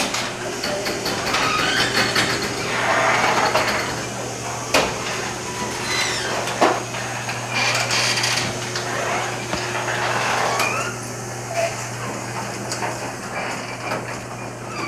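Heavy wind-driven rain pouring down outside an open door, a loud, even rush, with a steady low hum under it and a few sharp knocks.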